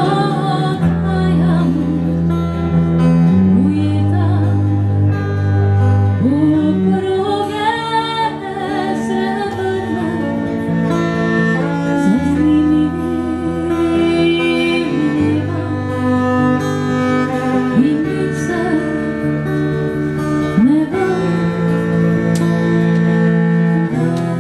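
Acoustic guitar and bowed cello playing together, the cello holding a low line under the guitar.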